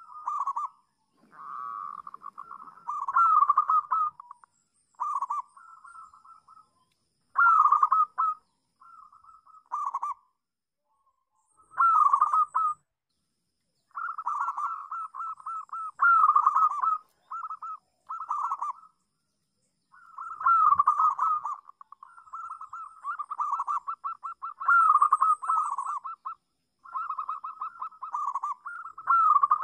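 Zebra dove (perkutut) cooing: a run of rolling, rapidly trilled coo phrases, some brief and some lasting a few seconds, separated by short pauses.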